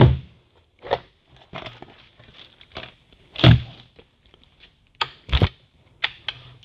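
A string of separate metal knocks and clicks from a TravelScoot mobility scooter's aluminium frame being handled: the battery lifted out and the frame's locking pins and rear trailing arms worked to fold it. The loudest knock comes about three and a half seconds in.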